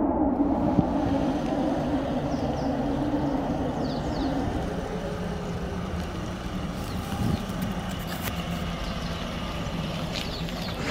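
Motor scooter engine running as it rides up and slows to a stop, a steady low hum.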